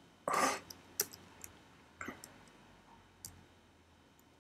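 A few slow, separate keystrokes on a computer keyboard, sharp single clicks spaced about a second apart. A short, louder rush of noise comes near the start.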